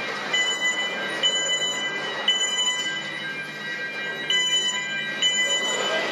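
Fire alarm siren sounding: several high-pitched steady tones that pulse on and off about once a second, set off by the flame detector.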